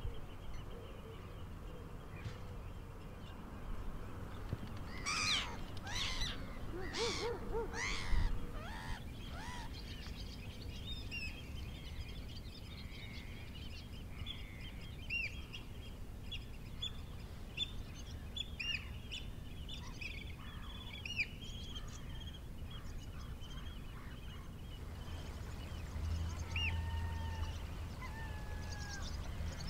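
Coastal salt-marsh birds calling over a low steady rumble. There are a few loud, harsh calls about five to eight seconds in, then many short, high chirps from smaller birds, and near the end repeated honking calls of geese.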